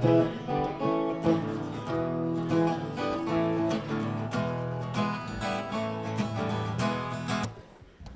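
Acoustic guitar being strummed, playing the opening chords of a song with no singing; it breaks off for a moment near the end and starts again.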